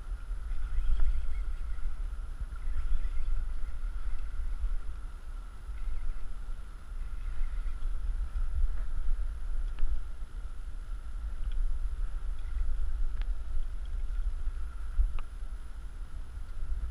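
Low, gusty rumble of wind on the microphone, with a faint steady high tone and a few small clicks.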